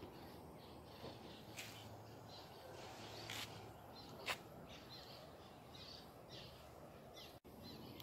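Quiet outdoor ambience with scattered faint bird chirps and a few soft clicks.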